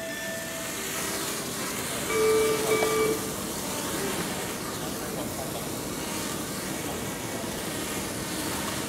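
Small printed-circuit-board quadrotor's motors and propellers whirring as it lifts off and makes short hops just above the floor. A louder whine with a few held tones comes about two seconds in and lasts about a second, then the whirring holds steady.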